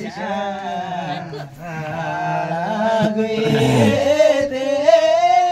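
A man singing a Karmarong folk song unaccompanied, in long held, wavering notes. A second, lower voice briefly overlaps a little past the middle.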